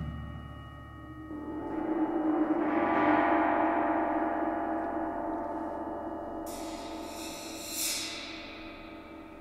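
A large suspended gong played with a soft mallet, swelling up to its loudest about three seconds in and then ringing on, slowly dying away. From about six and a half seconds a high hissing shimmer joins for a second or so, peaking near eight seconds.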